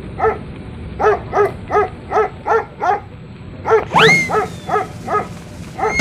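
A small dog yapping in quick, even yips, about three a second. A sliding whistle-like tone cuts in once about four seconds in.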